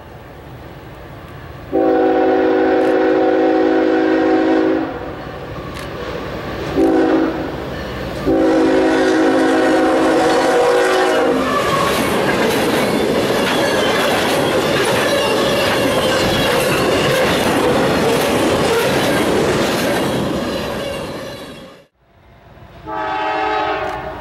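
Freight locomotive horn sounding a chord of several tones: a long blast, a short toot and another long blast as the train approaches. Then the freight cars roll past with a loud rumble and wheel clickety-clack, and after a sudden cut another locomotive's horn begins near the end.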